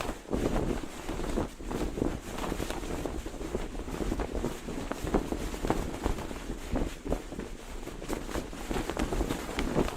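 Cloth flag flapping and snapping in the wind, in quick irregular cracks over a steady rush of wind buffeting the microphone.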